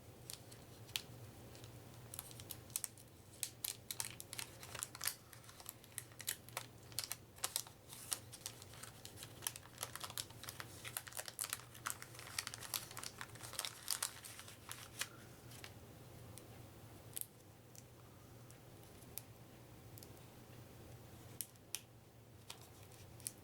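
Wax paper wrappers of vintage trading card packs being torn open and crinkled: a dense run of sharp crackles that thins out in the last third.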